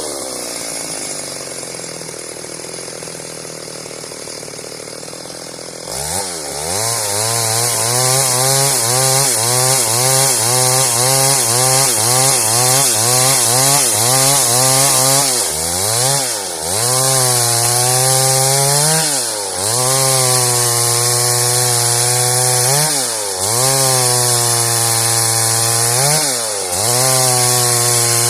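Stihl MS 382 two-stroke chainsaw running at a lower, steady speed for about six seconds, then opened up to full throttle and cutting wood into boards. Its engine pitch dips briefly and climbs back every few seconds as the chain bites and eases.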